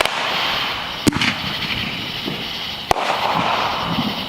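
Backyard consumer fireworks going off: three sharp bangs spread over about three seconds, with crackling hiss between them.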